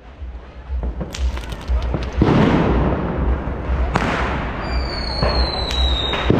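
Street fireworks and firecrackers going off: a run of sharp bangs with two loud blasts, about two and four seconds in. Near the end comes a high whistle that falls slightly in pitch.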